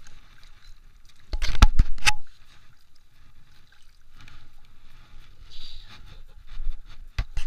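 Hand splashing and sloshing in shallow shoreline water while a small spotted bay bass is released. A cluster of sharp knocks and splashes comes about one and a half to two seconds in, and a few more come near the end.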